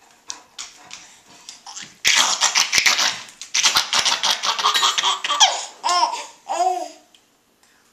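A baby laughing hard: a run of loud, breathy giggles starting about two seconds in, ending with a couple of pitched voiced laughs near seven seconds. A few light taps come before it.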